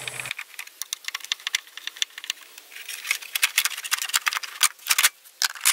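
Screwdriver working the fasteners of a plastic radiator cover, and the cover being handled: irregular plastic clicks and rattles.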